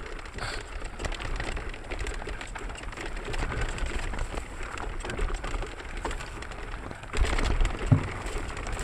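Mountain bike riding down a dirt trail: wind rumbling on the camera microphone, and the bike clattering and rattling over the ground. The noise gets louder and rougher about seven seconds in, and there is a single knock near the end.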